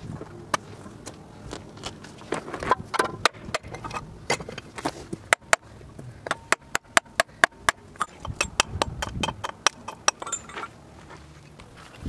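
A hand hammer striking stone in a series of sharp knocks, coming quickly at about three to four a second in the middle. Stones and soil are scraped and shifted between the blows.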